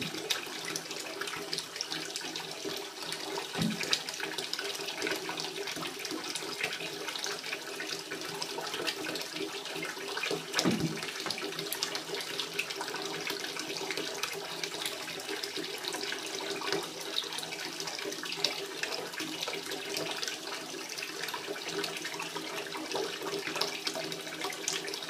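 Water running steadily into a bathtub from a tap or handheld shower hose, with a faint steady hum in the pipes; two soft bumps break through once or twice.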